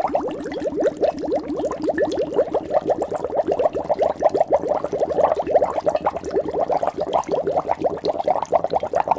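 Water bubbling: a dense, continuous stream of bubbles, each a short blip rising in pitch.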